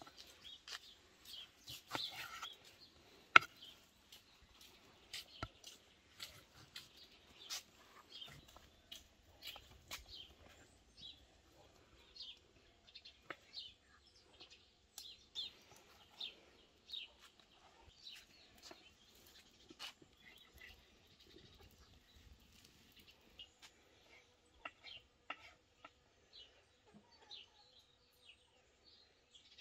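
Knife slicing raw meat on a wooden cutting board, the blade knocking the board at irregular intervals about once or twice a second, with one sharper knock about three seconds in. Birds chirp in the background.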